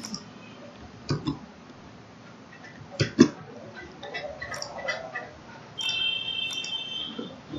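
Computer mouse clicking: two quick pairs of sharp clicks, the loudest about three seconds in. Near the end a steady high-pitched tone sounds for about a second.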